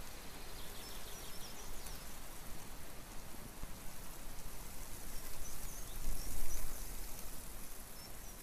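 Nature ambience: a steady rain-like hiss with a few faint high bird chirps and a swell of low rumble about six seconds in.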